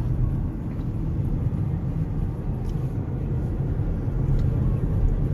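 Steady rumble of a car's engine and tyres on the road, heard from inside the moving car.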